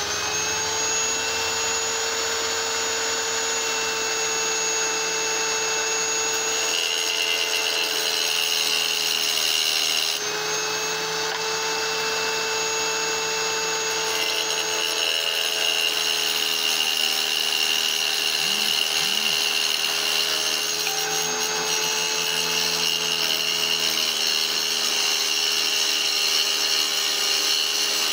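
Small wet tile saw's motor running at a steady high whine while a piece of petrified wood is held against the blade. Gritty grinding joins in about a quarter of the way through, breaks off briefly near the middle, then runs through most of the second half as the stone is cut down.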